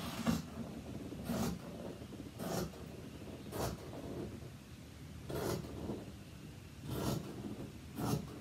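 Scissors cutting through shirt fabric: seven short snips roughly a second apart, with a slightly longer pause about halfway through.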